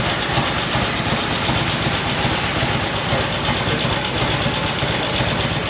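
Motorcycle engine idling steadily, with an even low pulsing throughout.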